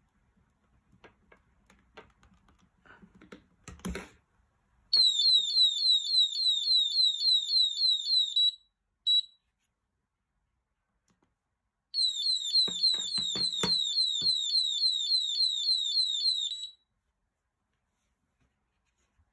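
Clicks and rattles of handling, then the anti-theft alarm of a HeyShow PSD107 phone security display stand goes off. It gives a rapid run of high, falling chirps, about four a second, for some three seconds, then one short beep, then a second run of chirps for about five seconds that cuts off suddenly.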